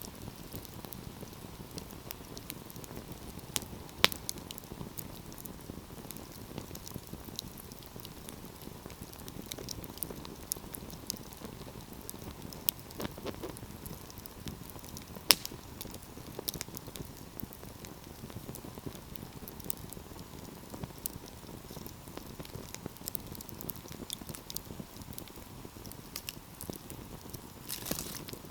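Wood fire burning with a steady low rush and scattered crackles, with two sharper pops about four and fifteen seconds in.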